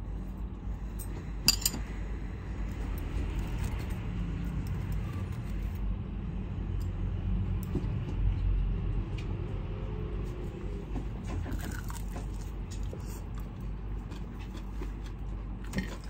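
Steady low background rumble, with a sharp clink about a second and a half in and a few lighter clinks near the end, from metal chopsticks against a ceramic rice bowl.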